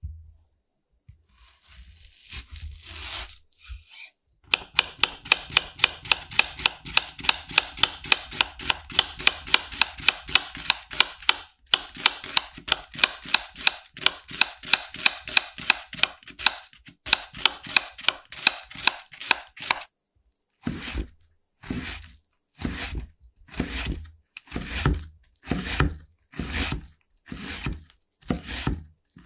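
Kitchen knife cutting an onion on a wooden cutting board: after a brief rustle of handling, quick even strokes about four a second, with a short break partway, then slower, longer strokes about one a second as the onion is minced.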